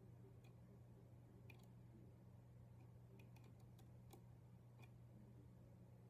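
Near silence with a dozen or so faint, irregular clicks of household wires being handled and tapped together at a ceiling junction box, over a steady low hum.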